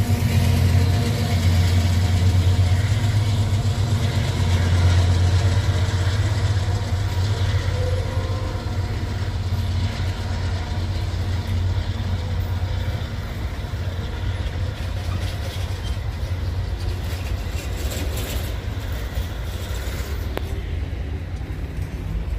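Diesel freight locomotive passing close with a deep, steady engine drone that weakens about halfway through, while loaded grain hopper wagons roll along the rails.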